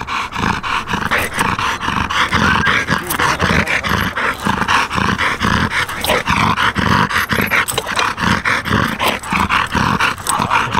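An American Bully panting hard and fast in a steady rhythm, about two breaths a second. He is breathing from the exertion of straining in a pulling harness against a heavily weighted sled.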